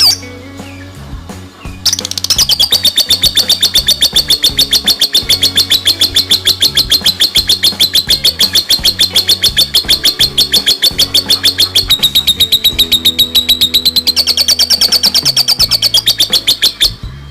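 A songbird sings one long, rapid trill of about seven notes a second that lasts some fifteen seconds. Its pitch dips briefly near the end, then rises again before the trill stops abruptly.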